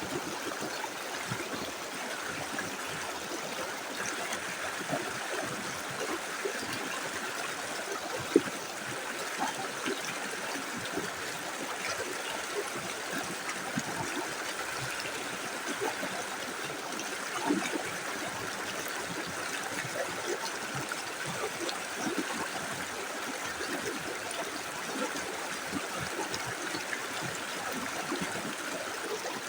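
Small river flowing steadily over stones, an even rushing with small gurgles and trickles. A brief sharp click comes about eight seconds in.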